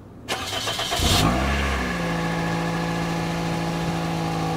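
A car engine cold-started after sitting for a couple of days: the starter cranks briefly, the engine catches about a second in, flares up and settles into a steady idle.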